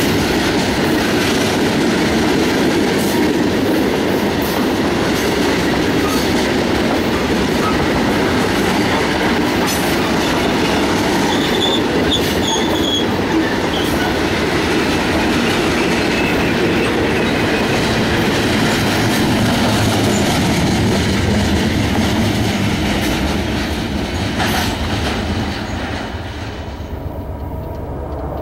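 Freight train of loaded tank cars rolling past close by: a steady, loud rumble of steel wheels on rail with clickety-clack over the rail joints. The sound falls away near the end.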